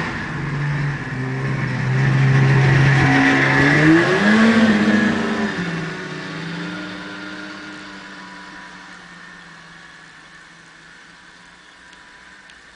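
Snowmobile engine revving as it pulls away, its pitch climbing about four seconds in, then fading steadily into the distance.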